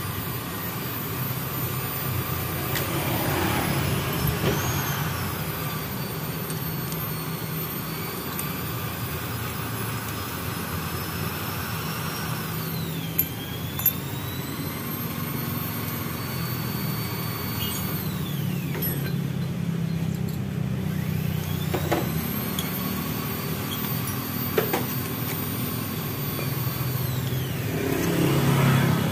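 Steady low rumble of engines in the background, with high whining tones that slide down and back up. There are short sharp clicks of hand tools on the engine parts: two close together about halfway through and one more later.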